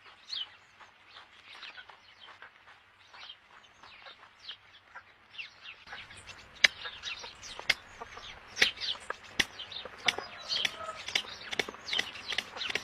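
Many birds calling at once: a dense run of short, high chirps that grows busier and louder about halfway through.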